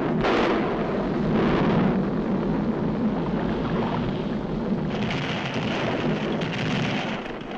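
Cartoon sound effect of a volcano erupting and rocks falling: a continuous noisy rumble, with a hissier layer joining about five seconds in.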